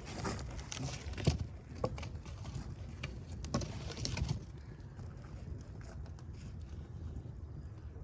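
Wood fire crackling and popping over a low, steady rumble of flames. Sharp cracks come thickly for the first four seconds or so, then thin out to occasional small ticks.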